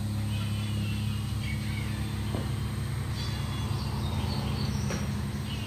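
Steady low hum of a running machine, with faint bird chirps and a couple of light knocks.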